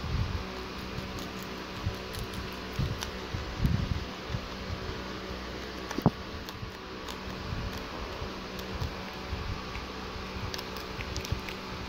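Steady electric fan hum, with faint crisp ticks of a baby rabbit chewing leafy herb stems and a few low bumps of handling, one sharp click about halfway.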